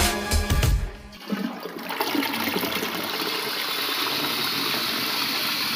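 Background music cuts off about a second in, giving way to a steady rush of running water.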